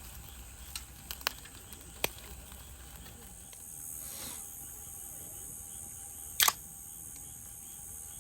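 Steady high-pitched trilling of insects, broken by a few sharp clicks in the first two seconds and a loud double click about six and a half seconds in.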